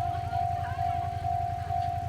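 Japanese level-crossing warning bell ringing on and on, a steady high electronic tone repeating about twice a second, over a low rapid throbbing.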